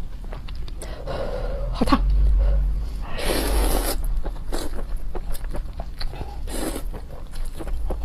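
A person slurping and chewing soup-soaked vermicelli noodles close to the microphone, with many wet mouth clicks. There are two longer slurps, one a little after three seconds in and a shorter one past six and a half seconds.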